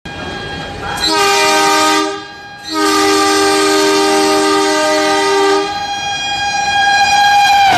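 Train horn blowing as a fast train approaches: a blast of about a second, a short break, then a long blast of about three seconds. One higher tone carries on after it and drops in pitch near the end as the engine passes.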